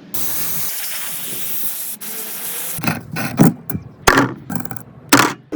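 Workshop tool noise: a steady hiss for the first two and a half seconds, then a run of irregular rasping, scraping strokes.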